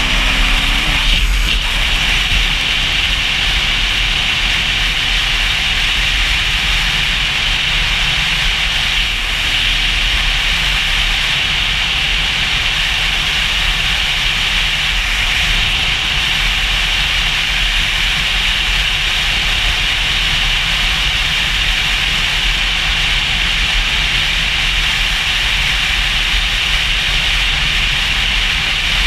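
Motorcycle at highway speed: a steady rush of wind over the engine's running, with the engine note climbing briefly at the start.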